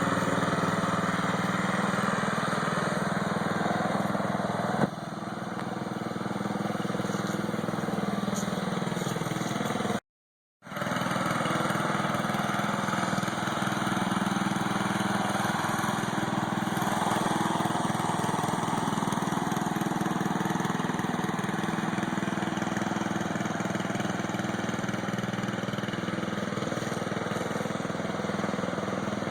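Small lawn-mower engine driving a homemade tank, running steadily. A sharp click comes about five seconds in, after which it runs a little quieter, and the sound drops out completely for about half a second around ten seconds in.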